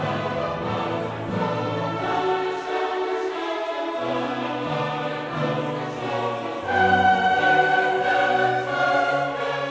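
Background music with choir-like singing: sustained chords that change every second or so, swelling louder about two-thirds of the way through.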